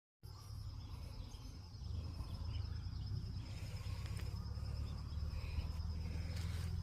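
Outdoor nature ambience: an insect trilling on one steady high note, with scattered faint bird chirps, over a constant low rumble that is the loudest part of the sound.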